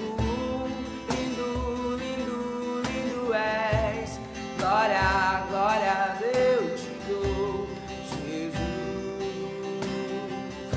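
Acoustic guitar strumming with low cajón beats about once a second, and a man's voice singing a wavering wordless line through the middle of the passage.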